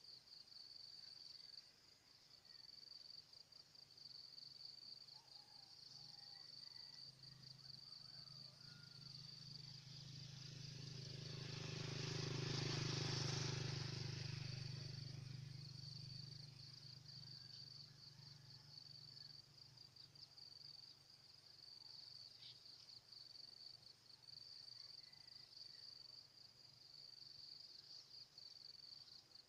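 Insects trilling steadily in a high, finely pulsing drone. Around the middle, a low hum with a rushing noise swells up over several seconds and fades away again.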